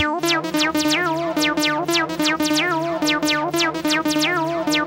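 Acid techno played from vinyl in a DJ mix: the kick drum drops out at the start, leaving a synth bassline with gliding, sliding notes over steady fast hi-hats.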